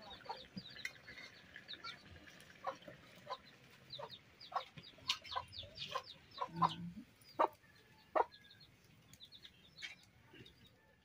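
Chickens clucking, with small birds chirping throughout in short high calls.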